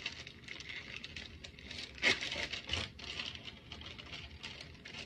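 Plastic, foil-lined bag of nori seaweed sheets crinkling and rustling as it is handled and opened, with a louder crackle about two seconds in.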